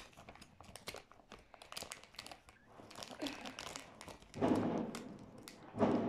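Crinkling and crackling of a plastic chip packet being handled and folded by hand, with a steady scatter of small crackles and louder rustles about four seconds in and again near the end.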